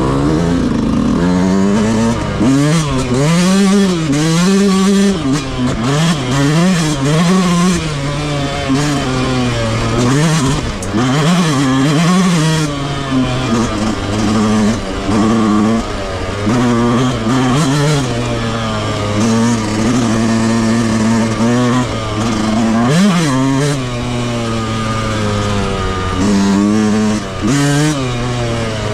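Stock-exhaust Yamaha YZ125 two-stroke motocross bike engine being ridden hard, the pitch rising and falling over and over as the throttle is opened and closed, with a steadier stretch in the middle and a quick rev and drop near the end.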